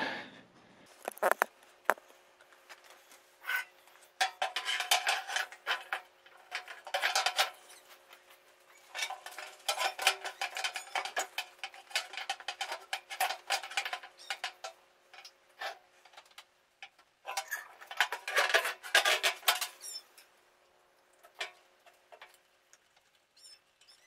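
A new sheet-metal squirrel-cage blower wheel being worked by hand into an HVAC blower housing: light metallic clattering and scraping of the thin blades against the housing, in three spells with short pauses between them.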